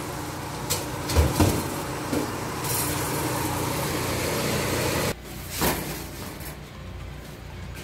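Steady whir of a Blodgett commercial oven running with its door open, with a few sharp metal knocks as a perforated baguette tray is pulled out. About five seconds in the whir drops away, leaving a quieter hum and one more clatter.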